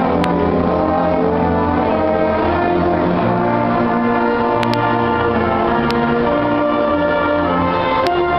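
A band of brass and wind instruments playing sustained chords over a low bass line, the notes changing every second or so.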